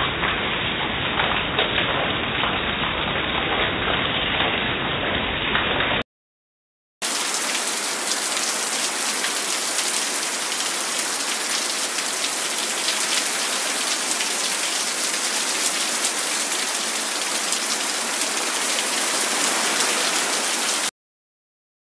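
Rain pouring steadily in a thunderstorm. It sounds dull and muffled for about the first six seconds, drops out for a second, then comes back brighter and stops abruptly near the end.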